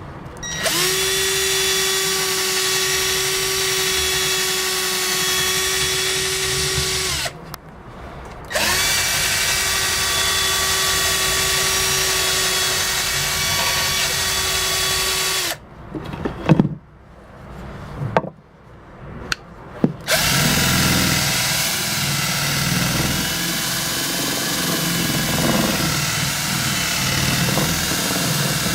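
Power drill spinning a Kaindl sanding star (abrasive flap wheel), in three runs of several seconds each with short pauses. The motor whine holds a steady pitch in the first two runs; a few knocks fall in the pauses, and the last run is rougher and less even.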